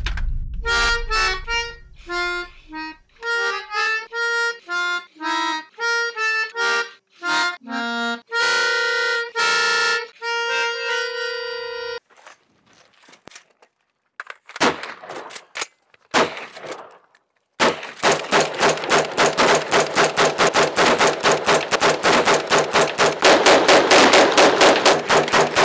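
A melody of held notes on a reedy instrument plays for about the first twelve seconds. After a short lull, rapid continuous gunfire starts about eighteen seconds in and runs on at several shots a second, with two shooters firing a lever-action rifle and an AR-type rifle together.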